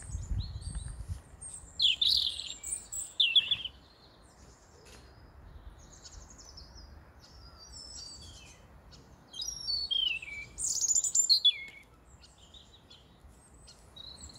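European robin singing: short, high, varied warbling phrases, some sliding downward, coming in bursts with pauses between. A brief low rumble at the very start.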